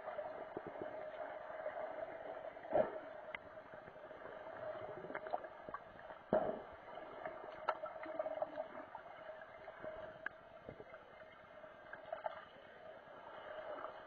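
Muffled underwater sound of a swimming pool heard from below the surface: a steady hum with a few sharp knocks and clicks, about three, six and eight seconds in.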